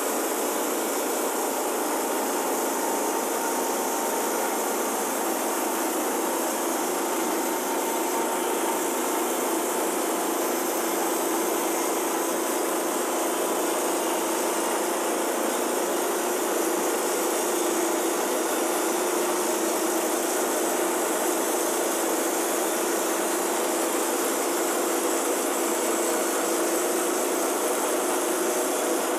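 Wood-Mizer LT10 bandsaw sawmill running steadily as its band blade cuts lengthwise through a hemlock log, a continuous loud engine-and-blade drone.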